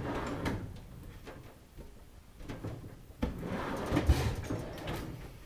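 Metal tools and engine parts being handled, scraping and clanking, with a sharp knock about three seconds in and a few more knocks a second later, as a bar is worked in to loosen the main bearing caps.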